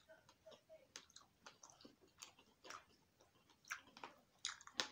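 Faint close-up chewing, with scattered small wet mouth clicks and smacks.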